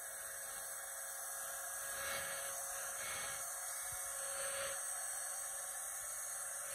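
Handheld electric hair dryer running steadily, a whine and a rush of blown air.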